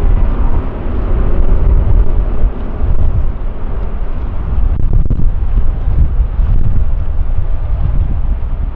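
Airliner engines rumbling: a loud, deep, unsteady roar with no clear tone.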